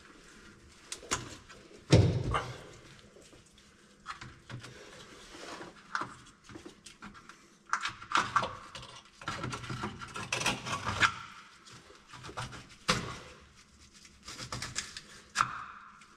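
Hands working on a pickup truck's wiring harness under the chassis: scattered clicks, taps and rustles of wires and connectors being handled, with a sharp knock about two seconds in and another a little past halfway.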